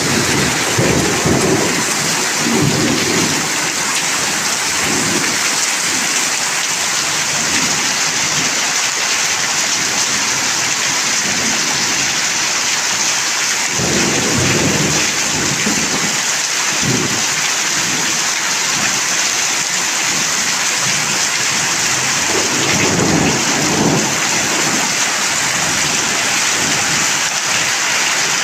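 Heavy rain pouring steadily as a dense hiss, with deeper rumbling swells a few times: near the start, around the middle and again late on.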